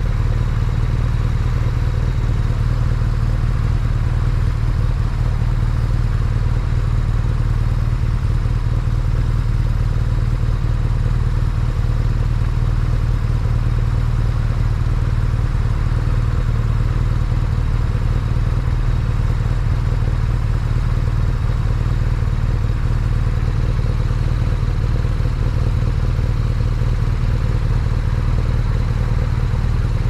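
BMW R nineT Pure's 1170 cc air/oil-cooled boxer twin running steadily at constant revs, heard from a helmet-mounted camera. The engine note holds the same pitch throughout, with no revving or gear changes.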